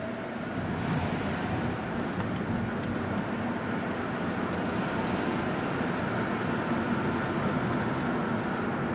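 Engine and tyre noise of a car driving, heard from inside the cabin, steady and getting a little louder about a second in as it picks up speed.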